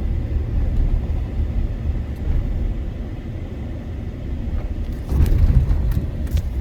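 Low, steady road and engine rumble of a moving truck heard from inside the cab, swelling about five seconds in, with a few light clicks near the end.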